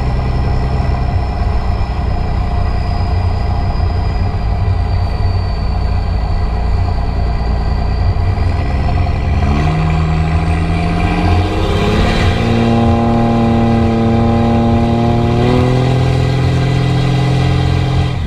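Diesel pickup's stack exhaust, heard from inside the cab with the rear window open: a loud, steady drone, then about halfway through the engine note climbs as the truck pulls harder, with a high whistle rising over it. The note holds, then steps to a new pitch a few seconds before the end.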